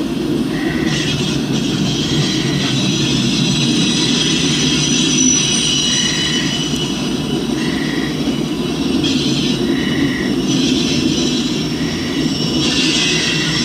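Freight train's cars rolling past steadily, with a high-pitched squeal from the wheels that comes and goes over the low rumble.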